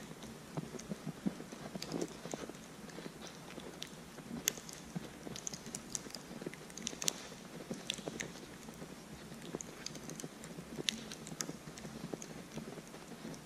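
Footsteps crunching in fresh snow at a steady walking pace, with scattered sharp high clicks among the steps.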